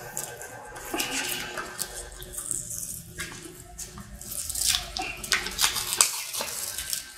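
Clear plastic lid being worked and pulled off the top of a paper drink cup: crinkling plastic with many scattered clicks and crackles.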